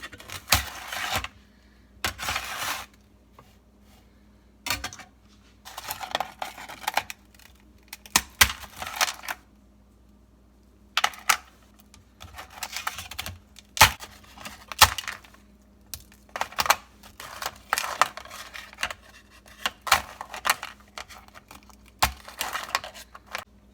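Hardened peanut brittle being snapped and broken into chunks: a run of sharp cracks and brittle crackles, with pieces clicking against each other and the surface they fall on, at irregular intervals with short pauses.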